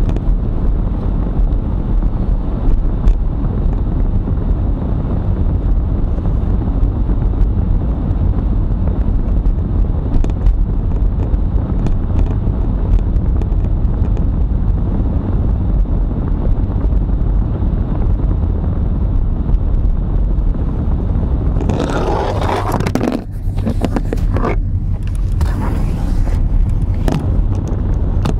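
Steady low rumble of a car's engine and tyres heard from inside the cabin while driving slowly through town streets. About three-quarters of the way through, a rough gusty hiss comes and goes: wind buffeting the microphone.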